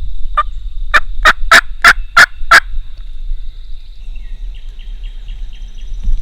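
Turkey calling: one short note, then a run of six loud, clipped notes about three a second, in the rhythm of a yelp series.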